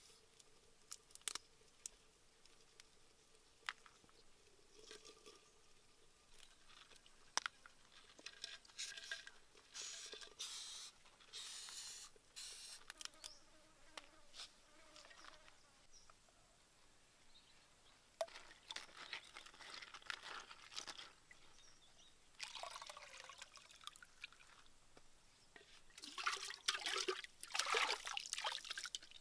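Scattered clicks and rustles of roasted bugs being handled, with a faint buzzing for the first several seconds. Near the end comes the loudest sound: water poured from a clay pot, splashing onto wet ground.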